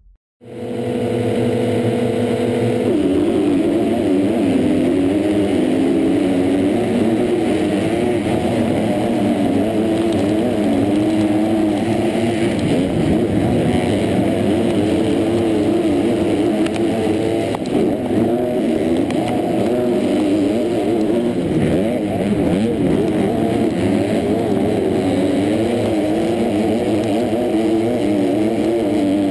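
A pack of four-stroke motocross bikes at full race pace, heard from a rider's helmet. The engines hold steady revs for the first couple of seconds, as at the starting gate. Then they rev up and down constantly as the pack races off the start.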